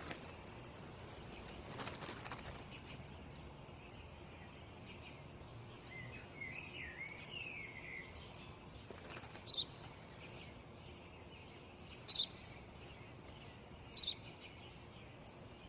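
Sparrow chirping: short, sharp chirps every second or two, with a brief warbling phrase about six seconds in, over a faint steady background hiss.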